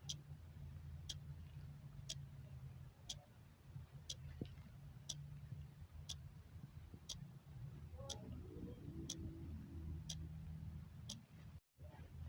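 A clock ticking steadily, with sharp, regular ticks about once a second over a faint steady low hum. The sound drops out completely for a moment near the end.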